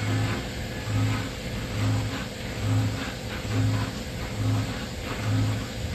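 Mori Seiki CNC machine running while machining heat-treated stainless steel. A low hum swells and fades in a steady beat, a little faster than once a second.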